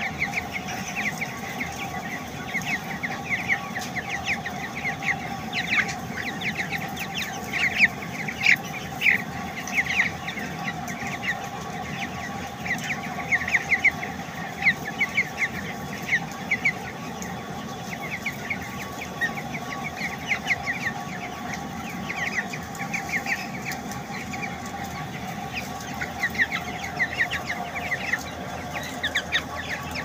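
A flock of about three-week-old broiler chickens peeping and chirping, many short high calls overlapping without a break, over a steady hum.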